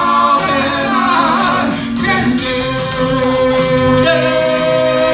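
Live soul band playing, with singing and long held notes over guitar and rhythm section.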